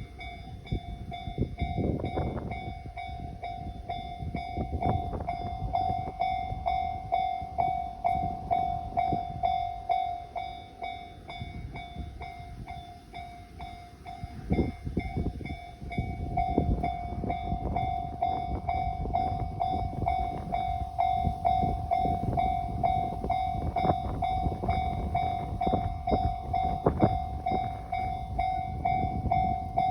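Japanese railway level-crossing warning bell ringing in its steady, repeated "kan-kan" alarm, over the rumble and wheel clatter of a JR Kyushu 815 series electric train passing the crossing.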